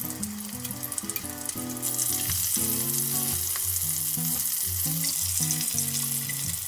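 Battered shrimp sizzling in hot shallow oil in a frying pan, with a steady crackling hiss that grows louder about two seconds in and stays so.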